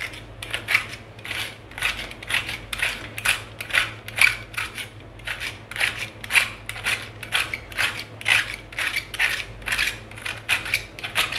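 A vegetable peeler shaving a wedge of raw cabbage into fine shreds: a steady run of short, crisp scraping strokes, about three a second, as the blade cuts through the layered leaves.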